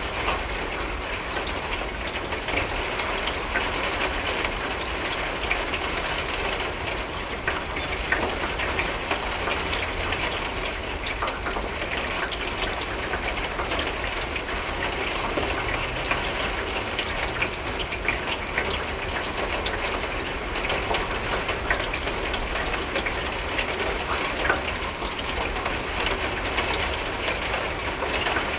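Steady rain falling against a window: a continuous hiss dotted with many small drop taps, with a low rumble underneath.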